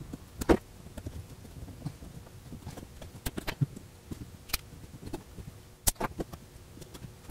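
Scattered sharp clicks and small knocks of metal pliers working tiny screws out of the inside of a Lytro camera's plastic housing, with the loudest click about half a second in.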